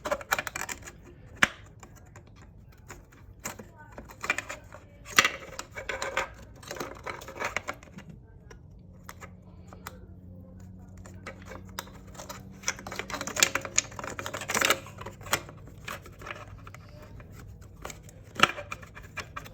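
Irregular sharp clicks and taps of metal transmission parts and tools being handled inside a 4L60E transmission case. A steady low hum comes in about eight seconds in.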